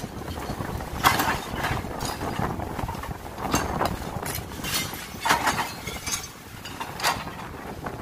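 CAT 426F backhoe loader's backhoe bucket digging through soil and broken concrete rubble, with about half a dozen sharp scrapes and clanks of the steel bucket and teeth against rubble over the engine's steady running.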